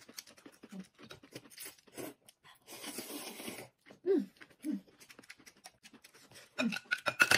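Noodles being eaten with chopsticks: a noisy slurp about a second long around three seconds in, amid small chewing and mouth clicks. There are two short falling voice sounds just after the slurp and a few sharp clicks near the end.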